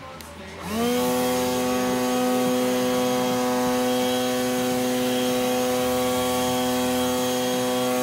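Leaf blower starting up about a second in with a quick rising whine, then running at a steady high pitch while blowing grass clippings off a concrete sidewalk.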